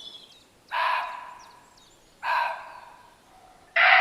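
Muntjac deer barking: three short, harsh, rasping barks about one and a half seconds apart, each trailing away after its sharp start.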